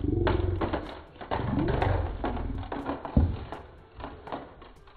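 Handling noise from a heart-shaped chocolate box and its plastic candy tray: a run of clicks, crinkles and rustles, with one sharp thump a little after three seconds.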